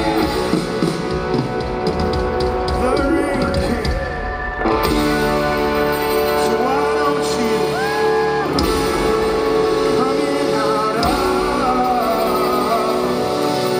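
Live rock band playing electric guitars, drums and keyboards, with a male lead vocalist singing long held notes, in a large arena's reverberant sound.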